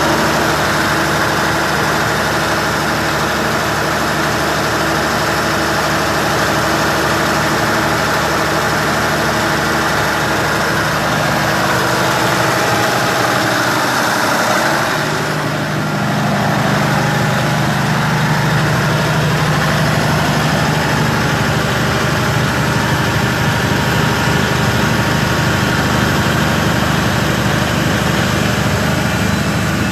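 Hangzhou Fortune oxygen-production machinery running with a loud, steady mechanical drone. About 15 seconds in it dips briefly, then settles into a slightly different steady hum.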